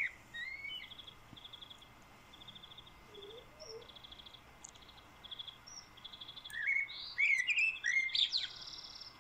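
Small birds chirping: short buzzy trills repeated about every half second, mixed with sliding chirps, with a busier flurry of calls about seven to eight and a half seconds in.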